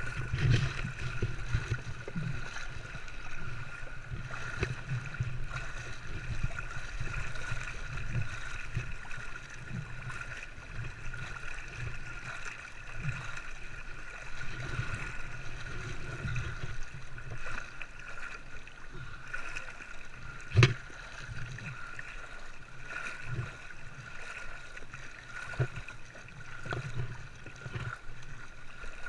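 Fast white water of a river rapid rushing and splashing close up, with frequent low thumps and one sharp knock about two-thirds of the way through.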